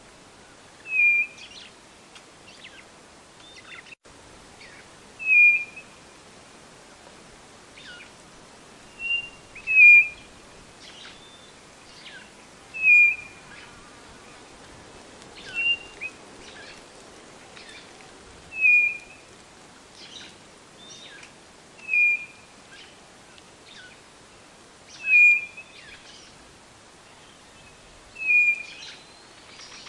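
White-bellied nothura (codorna-do-nordeste) calling: a short whistled note repeated about every three seconds, around nine times, once given as a quick double note. Faint chirps of other birds or insects sound in the background.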